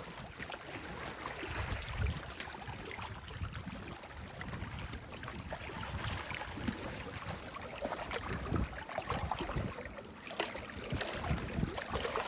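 Lake water splashing and sloshing in irregular bursts, as from someone getting into the water and swimming.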